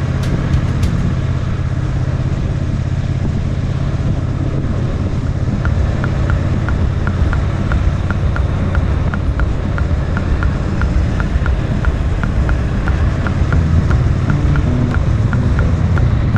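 Triumph Bonneville T120's 1200 cc parallel-twin engine running steadily at riding speed. From about six seconds in, a light regular ticking joins, about three ticks a second.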